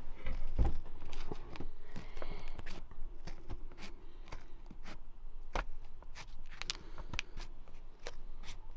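Scattered light knocks, taps and scrapes from handling and marking a piece of laminate flooring.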